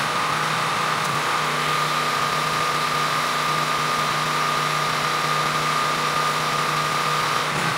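4 GPM gas-engine pressure washer running steadily under load, with a steady high whine over the engine note and a hiss of water spray from the wand striking concrete.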